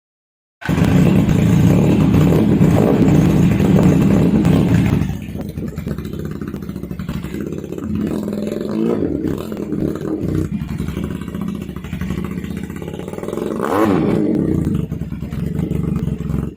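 Taro Valentino 250 motorcycle engine running through an SC Project full exhaust system. It runs loud for the first few seconds, then drops to a lower, steady running note with a couple of throttle blips, one past the middle and one near the end.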